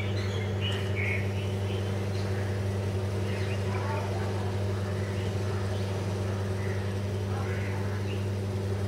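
A steady low hum throughout, with faint, scattered short higher-pitched sounds over it.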